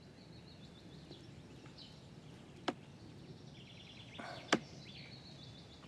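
Faint background ambience with a high, rapid chirping, broken by two quick whooshes, one a little under three seconds in and one about four and a half seconds in.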